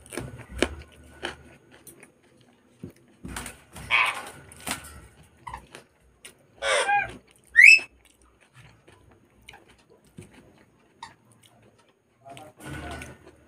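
Close-up eating sounds: moist chewing and smacking with sharp crunchy bites, then a loud slurp about seven seconds in that ends in a short rising squeak as a strand of food is sucked into the mouth.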